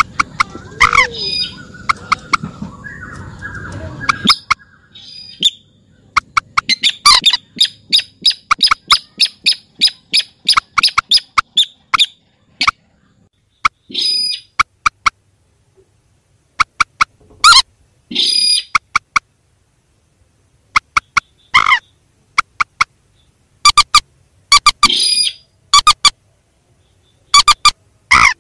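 Recorded rail calls played as a bird lure. A noisy stretch comes first, then from about six seconds in a fast run of short, sharp calls, several a second, followed by scattered single calls and short bursts.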